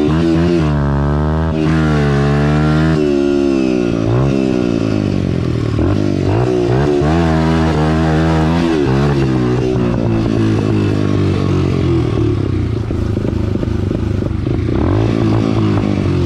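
Dirt bike engine being ridden, revving up and easing off several times as the throttle is opened and closed. From about ten seconds in it runs lower and rougher.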